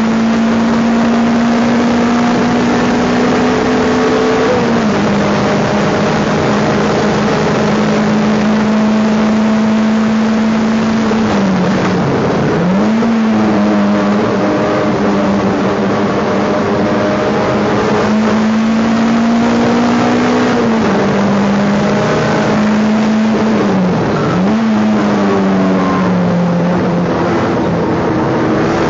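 Race car engine heard from inside the stripped, roll-caged cabin, held at a steady high pitch with road and wind noise. Its pitch steps down twice, and twice dips sharply and climbs back again, as the car changes gear and lifts off before accelerating.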